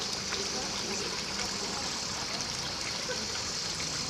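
Cicada singing: a continuous, high-pitched buzzing drone that holds steady without a break.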